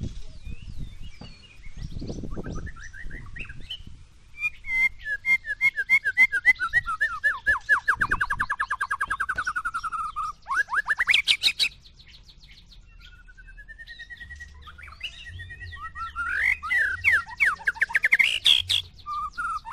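White-rumped shama singing: a long, fast run of rapidly repeated notes that slowly falls in pitch, then quick rising sweeps, and after a short lull a string of varied whistled phrases.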